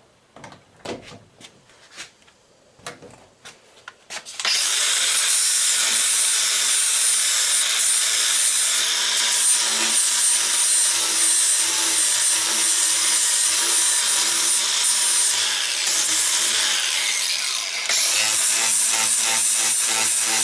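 A few light knocks of handling, then a power tool starts about four seconds in and runs steadily on wood, dipping briefly near the end.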